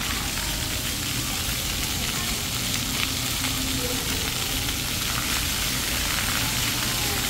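Water jets of a plaza floor fountain spraying and splashing down onto wet paving, a steady hiss.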